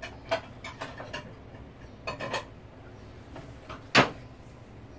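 Kitchenware handled on a counter: a few light clicks and taps, then one sharp knock about four seconds in.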